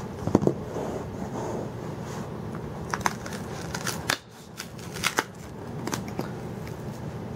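Package being handled and opened: rustling of packing material with several sharp clicks and taps, over a steady low background hum.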